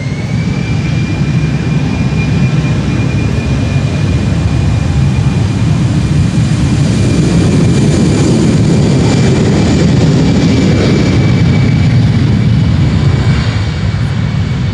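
Jet airliner engines running as the aircraft passes close on the ground: a loud roar with a steady high whine, swelling to a peak about halfway through and fading near the end.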